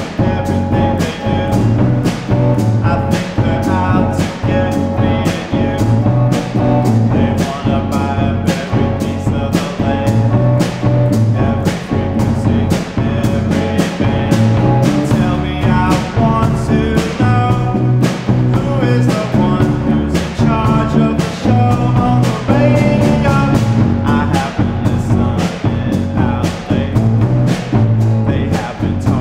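Indie rock band playing live: electric guitar, bass guitar and drum kit keeping a steady beat, with a male voice singing over them.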